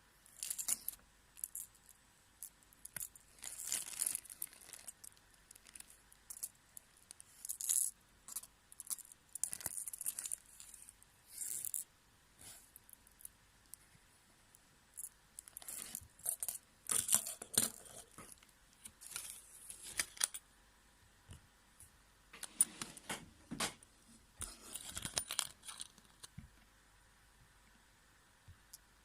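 Packaging being handled and torn open, with rustling and light clicks and rattles of small hard items, in irregular bursts with short quiet gaps.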